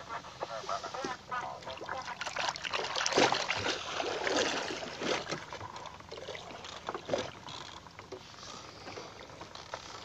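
Sea water splashing and sloshing against the side of a small boat, irregular and loudest in the middle, easing off in the last few seconds.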